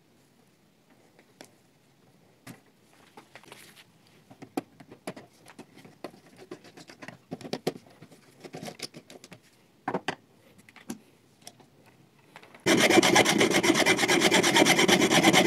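A screwdriver working the screws of DIN-rail terminal blocks and gloved hands handling the wire: scattered small clicks and rustles. About thirteen seconds in, a much louder steady rasping noise starts and cuts off abruptly near the end.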